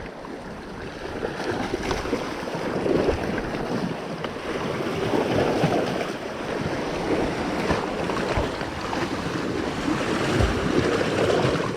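Wind buffeting the microphone over the sound of sea water washing and lapping, a steady rushing noise.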